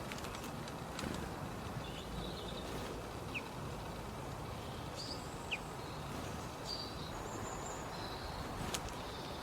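Small birds chirping: scattered short, high calls, two of them quick downward-sliding notes, over a steady background hiss of outdoor ambience.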